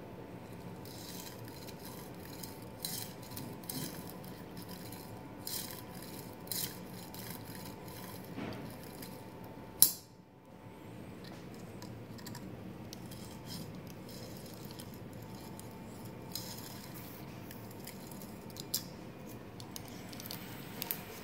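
Light clicks and rubbing from a small 3D-printed plastic mechanism being handled, over a faint steady hum, with one sharp click about ten seconds in.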